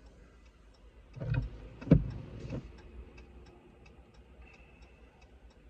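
Car turn signal clicking steadily, about three ticks a second, inside the car's cabin. A low rumble and a sharp thump come between one and two and a half seconds in.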